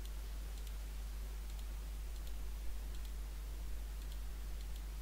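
Computer mouse clicking: a series of faint, irregular clicks as polygons are picked one by one, over a steady low hum.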